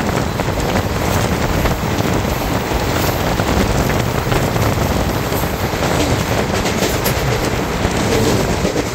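Kumbh Express passenger train running on the track: a loud, steady rumble with a continuous rattle of the coaches.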